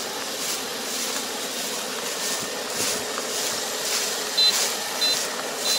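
Rice combine harvester running, with a high hiss pulsing about twice a second. From a little past the middle, its short high reversing beep sounds three times, about 0.6 s apart.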